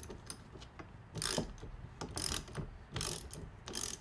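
Socket ratchet wrench clicking in short bursts about once a second as it is swung back and forth, loosening the bolt of a shift linkage tension clamp.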